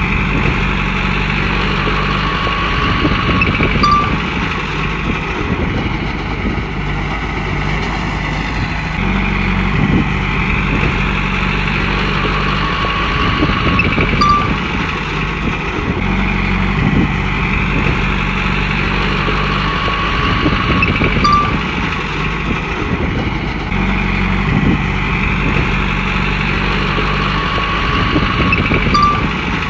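Komatsu bulldozer's diesel engine running steadily under load, its note swelling and easing in a repeating cycle about every seven or eight seconds as the machine works back and forth.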